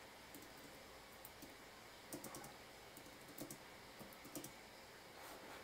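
Faint keystrokes on a computer keyboard: scattered taps, with a short run of typing about two seconds in.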